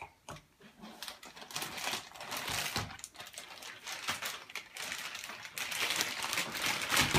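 Plastic Play-Doh tubs and toy pieces being handled, with a run of small clicks, taps and rustling.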